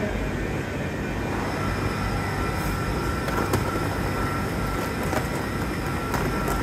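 Steady low rumble of a big railway station's train shed, with a thin steady whine coming in about a second and a half in and a few faint clicks.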